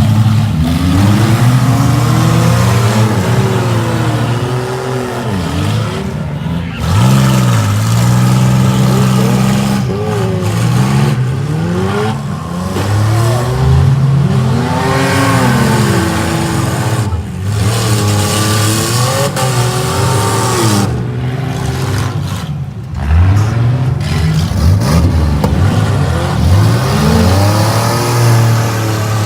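Several minivan engines revving hard and easing off over and over, their pitches rising and falling across one another, as the vans run in a demolition derby.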